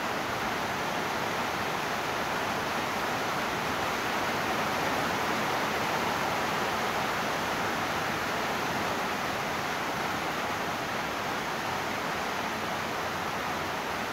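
Steady rain falling, an even hiss that holds level throughout.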